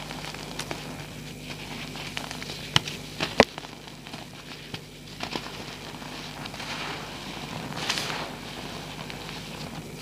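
Reformed gym chalk, made with gel so it crumbles messily, crushed and squeezed by hand in loose chalk powder: soft crunching and crackling, with two sharp cracks a little under a second apart about three seconds in and a longer rustling swell near eight seconds. A faint steady hum lies underneath.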